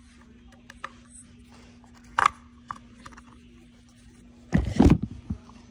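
A few light clicks of metal tools and parts on a workbench, then a loud thump and rubbing of the phone being handled and moved, starting about a second before the end. A faint steady hum runs underneath.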